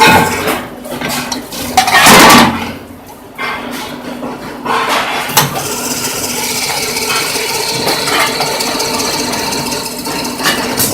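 Multi-head drilling machine running with a steady motor hum. About two seconds in there is a loud burst of noise, with a few sharp metallic clanks later on.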